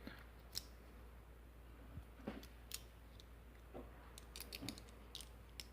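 Faint, scattered small clicks and scrapes of a tool and hands working at a lock, prying at its glued-on top.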